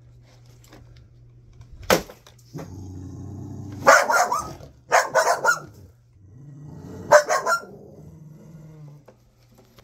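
Pit bull growling low and barking in three quick flurries of several barks each. There is a sharp knock about two seconds in.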